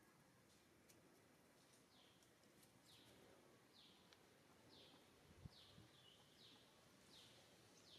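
Faint bird calls: a short falling chirp repeated about once a second, starting near two seconds in, over quiet outdoor background, with a single soft low thump about five and a half seconds in.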